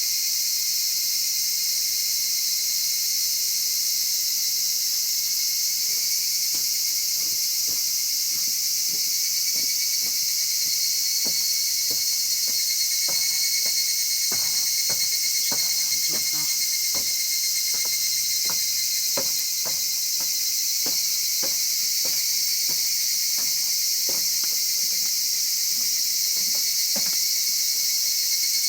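Wood fire crackling and popping in a chimney fire pit, with sharp pops scattered thickly from about six seconds in, over a steady loud chorus of crickets trilling.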